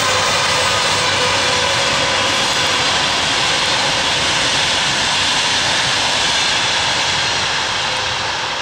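Express passenger train's wheels rolling past close by on the rails: a loud, steady rushing noise as it departs. A faint whine, probably from the electric locomotive, falls away in the first second, and the noise starts to fade near the end as the train pulls away.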